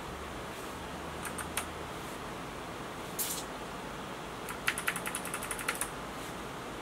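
Key presses on a Geekstar GK801-2 keyboard with Kailh optical switches: three clicks about a second and a half in, a short scrape near three seconds, then a quick run of about a dozen presses around five seconds in, as the Fn and arrow keys are pressed to step through the LED lighting modes.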